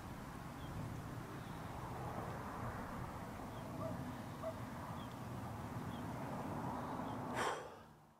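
Steady low outdoor background rumble with a few faint, brief bird chirps. A short rush of noise comes near the end before the sound cuts off.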